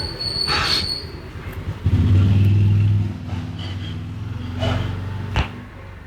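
A motor vehicle's engine running close by: a low steady hum that comes in loudly about two seconds in and fades away over the following seconds. A brief rushing rub comes near the start and a single sharp click near the end.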